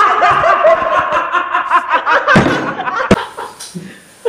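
Hearty laughter that breaks off after about two seconds, followed by a sharp click.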